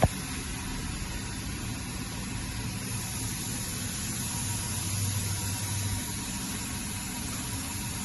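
Hurco VMX42U vertical machining center running under power: a steady hiss and hum, with a sharp click at the very start and a low hum swelling for a second or so after the middle.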